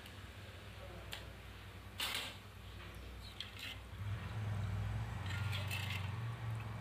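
A steel spoon stirring soaked rice in a pot of water, with scattered clinks and scrapes against the aluminium pot. A steady low hum comes in about four seconds in and stays under the stirring.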